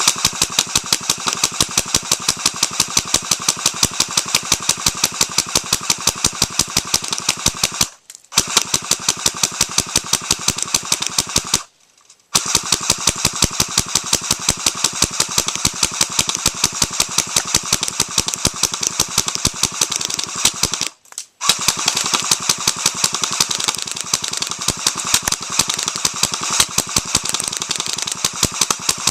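Airsoft guns firing in rapid automatic fire, a fast, even stream of sharp shots that runs on with short pauses about 8, 12 and 21 seconds in.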